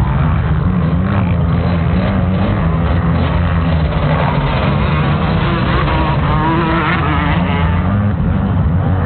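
Motocross bike engines running hard at a race, the pitch rising and falling as the riders work the throttle. The engine noise is loud and continuous.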